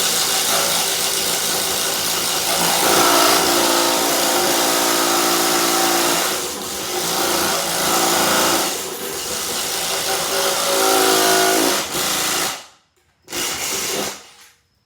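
Dewalt 12V Xtreme impact driver boring a 3/4-inch spade bit, running hard under load for about twelve seconds with two brief dips, then stopping. A second short run follows near the end.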